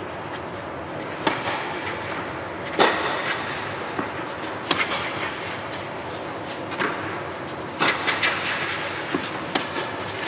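Tennis balls struck by rackets and bouncing on a clay court during play: a series of sharp knocks, the loudest about three seconds in and a quick cluster near the end, over steady background noise.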